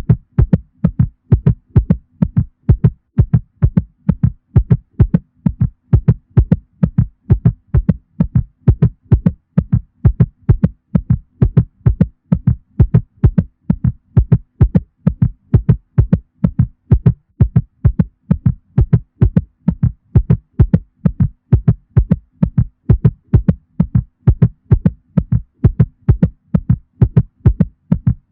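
Heartbeat sound effect, billed as a mother cat's heartbeat: a steady, even lub-dub rhythm of paired low thumps over a faint low hum.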